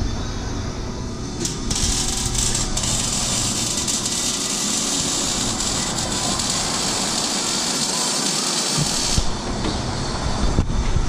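A shop tool working on the car's exhaust from underneath, giving a steady hiss that starts about two seconds in and cuts off about nine seconds in, over a low shop rumble.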